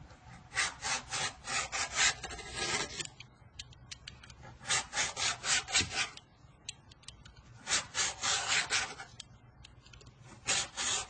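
Utility knife blade slicing into a cone of wound thread: quick scratchy cutting strokes in four bursts, the first the longest, with short pauses between.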